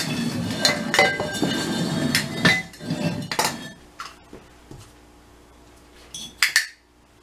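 Terracotta flower pots knocking and clinking as they are set down and shuffled on a hard floor, each knock ringing briefly, in a busy run of knocks over the first three or four seconds. After that it goes quiet except for one brief noise about six and a half seconds in.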